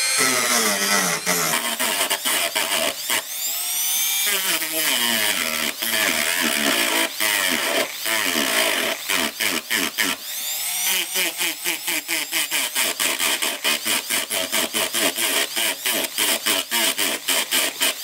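Dremel rotary tool with a small cutting disc grinding through the rivets of a metal circuit-breaker case. The motor's whine drops and recovers in pitch as the disc bites. In the second half the disc chatters against the metal in quick regular pulses, about three a second.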